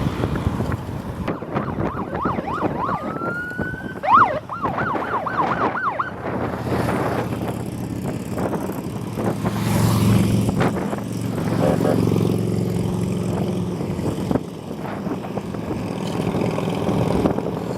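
An emergency-vehicle siren sounds a couple of seconds in: one rising wail, then a fast up-and-down yelp for about three seconds, over steady wind and road noise. Later a low, pitched drone swells for a few seconds.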